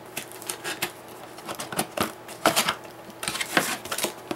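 Cardboard box being opened by hand: an irregular run of sharp clicks, scrapes and rustles as the lid and flaps are pried loose and lifted.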